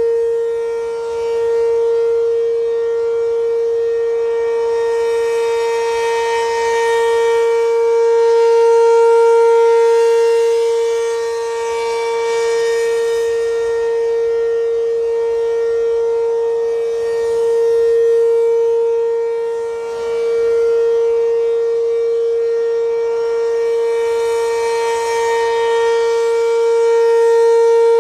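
ACA P-15 siren sounding a steady alert signal: one loud, unbroken tone that holds its pitch, swelling and fading in loudness every several seconds.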